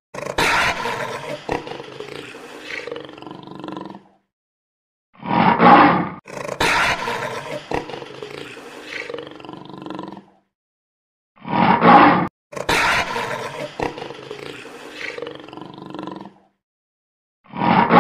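Big cat growling and roaring: a short loud call followed by a growl of about four seconds, then a brief silence, the pattern repeating about every six seconds.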